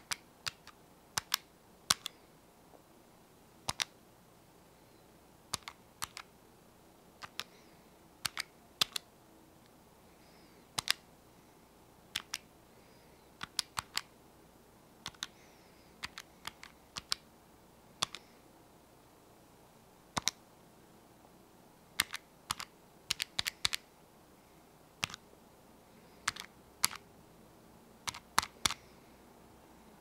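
Calculator buttons being pressed one at a time at an uneven pace, each a short sharp click, often in close pairs. A quick run of several presses comes a little past two-thirds of the way through.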